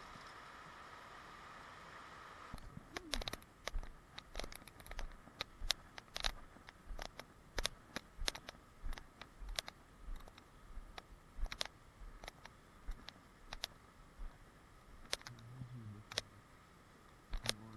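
Irregular sharp clicks and light knocks, with soft thuds beneath some of them: handling and footstep noise from a GoPro action camera carried by someone walking through brush. A steady hiss for the first couple of seconds stops suddenly as the clicking begins.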